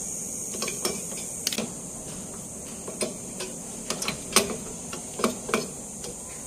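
Irregular metallic clicks and light clinks of a Mazda 323's rear drum-brake shoe and its hold-down hardware being worked loose by hand on the backing plate, the sharpest click about four seconds in.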